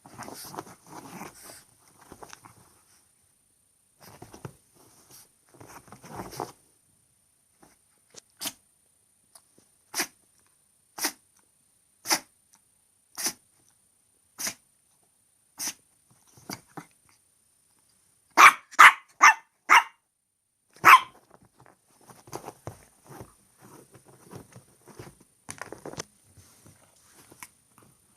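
Long-haired chihuahua barking and sneezing in short sharp sounds about a second apart, with a run of four loud ones in quick succession about two-thirds of the way through. Stretches of soft scuffling and rustling come between them.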